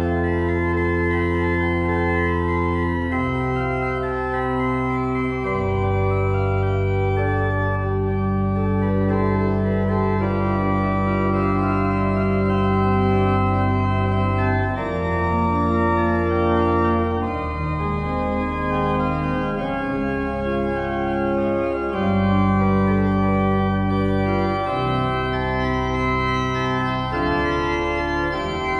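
Church pipe organ playing slow sustained chords over long held bass notes, the harmony shifting every few seconds.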